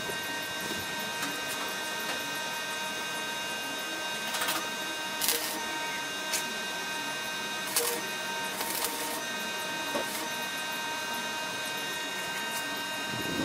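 MIG welder tack-welding sheet-steel bumper panels: four short bursts of arc, each a fraction of a second, over a steady hum of several fixed tones.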